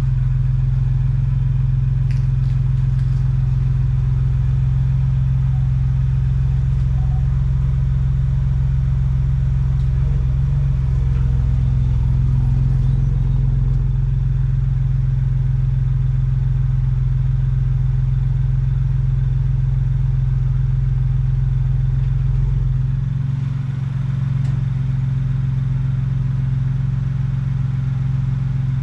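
A 2021+ Ford Bronco's engine idling steadily, a constant low hum.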